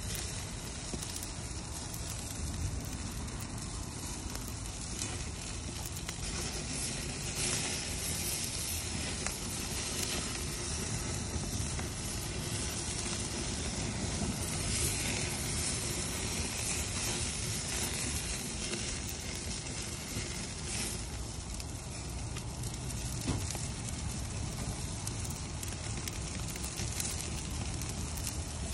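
Bed of glowing lump charcoal under a rotisserie roast crackling and sizzling steadily, with many small sharp pops scattered throughout, as fat drips onto the hot coals.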